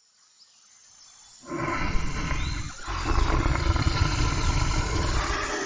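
A bear vocalizing in long, low calls, coming in after a faint fade-in about a second and a half in, with a brief break near the middle.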